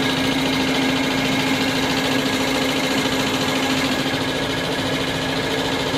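Bosch injection pump test bench running, driving an inline diesel injection pump with a steady mechanical hum on one constant tone.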